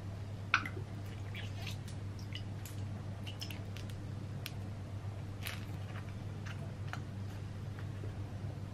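Condiment bottles and a paste tube squeezed into a small glass bowl: soft squelches and small plastic clicks, the sharpest click about half a second in, over a steady low hum.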